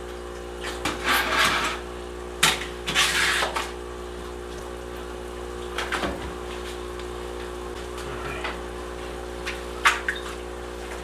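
Small water pump humming steadily while a plastic bucket is handled in the tank, with several short bursts of water sloshing and knocks.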